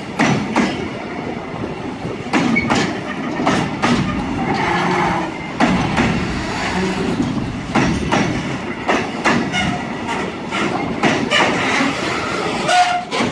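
Container flat wagons of a slow freight train rolling past, their wheels clacking over the rail joints again and again above a steady rumble. A few brief wheel squeals ring out, one about a second before the end.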